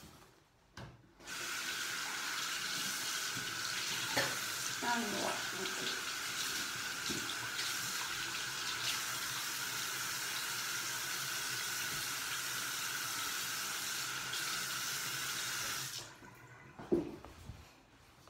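Water tap running steadily into a sink, then turned off near the end.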